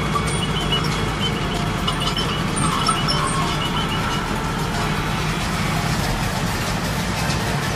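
Tractor engine running steadily under load while pulling a Deutz-Fahr MP 119 round baler that is picking up and baling hay. A few short, high chirps come in the first few seconds.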